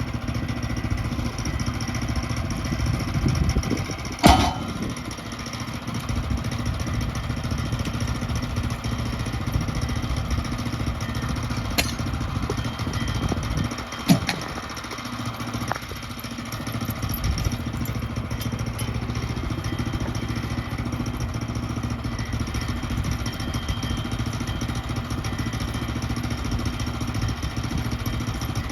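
Engine of a Woodland Mills HM122 portable bandsaw mill running steadily while milling southern yellow pine. A sharp knock about four seconds in, and two smaller clicks later.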